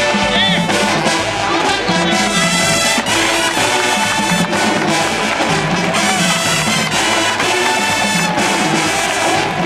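HBCU marching band playing, its brass section loud with trumpets and trombones sounding full chords.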